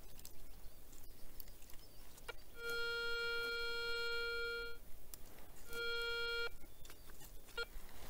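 Garrett ACE 250 metal detector sounding its target tone: one steady beep about two seconds long, then a shorter one a second later, with brief blips before and after. The tone signals metal under the search coil.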